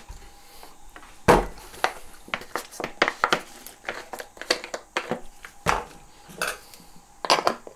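Scattered clicks and knocks of hand tools, a table knife and a plastic bottle being picked up and handled on a tabletop. There are two louder knocks, about a second in and a little past halfway.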